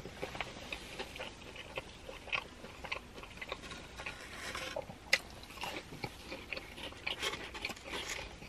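A person chewing a breaded fried chicken nugget close to the microphone: irregular crisp crunches and small wet mouth clicks, with one sharper crack about five seconds in.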